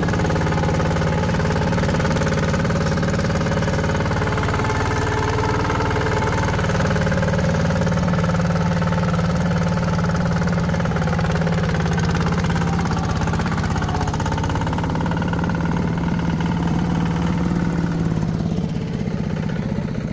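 Heavy diesel machinery engine running steadily under load, with a constant deep note and a rattling hiss above it. About three-quarters of the way through, the higher noise eases off and the engine settles to a quieter, steadier run.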